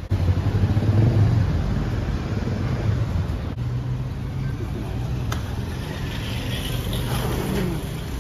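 Street traffic with a car engine running close by, a steady low rumble that is loudest in the first couple of seconds. Two faint clicks come in the middle.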